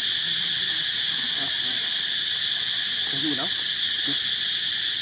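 Steady, continuous drone of a chorus of insects. Near three seconds in, a faint brief call that rises and falls can be heard.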